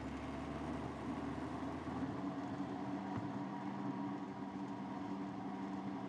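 Worn car wheel bearing humming steadily as the car rolls along the road, a drone of a few held tones over tyre noise.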